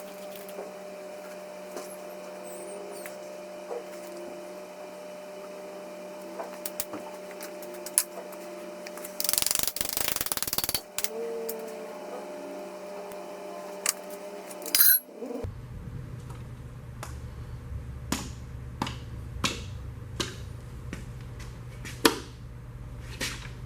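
Hand tools and metal engine parts clicking and tapping during an engine teardown, in scattered light strikes. There is a brief hissing burst about ten seconds in and a louder clatter near fifteen seconds, after which a steady low hum sets in.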